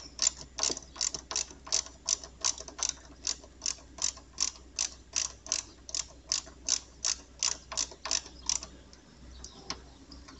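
Ratchet wrench clicking steadily, about three clicks a second, as a 10 mm nut is run down on the motorcycle's chassis ground point to clamp the negative cables. The clicking stops about nine seconds in.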